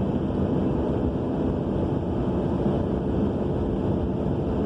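Steady roaring drone from the rear end of a 2000 Subaru Legacy AWD under way, heard with road and wind noise through a cracked window. It is a mystery noise that persists even though the wheel bearing, brakes, calipers and rotors are all new.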